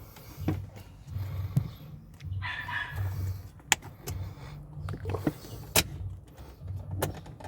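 Scattered sharp clicks and knocks of a plastic dashboard cover and its clips being worked loose by hand, over a low pulsing hum.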